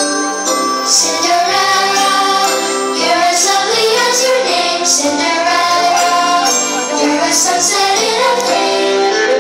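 Fireworks-show soundtrack music: a woman singing over instrumental accompaniment, with short sharp hits every second or so.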